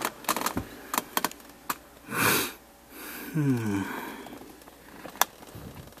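A man's sniff about two seconds in, then a brief falling 'hmm' of voice, with scattered light clicks and taps from handling the exposed gear-shifter assembly and its plastic trim.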